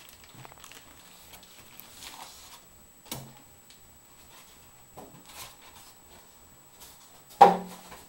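Handling noise as a rack power amplifier in a plastic bag is lifted out of its cardboard box: faint rustling of the plastic and a small knock about three seconds in, then one loud, heavy thump near the end.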